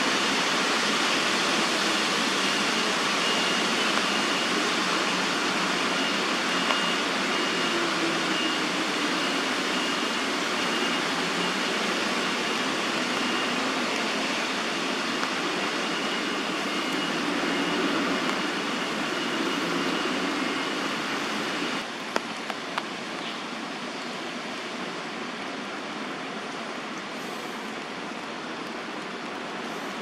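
Steady outdoor background hiss that drops noticeably in level about two-thirds of the way through, with a faint, evenly repeated high pip during the first part.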